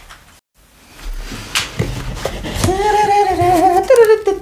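A man humming a wavering tune, starting about two and a half seconds in, after a few knocks from the cardboard box being handled.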